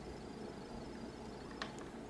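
Quiet room tone: a steady low hum and faint hiss, with one short click about one and a half seconds in.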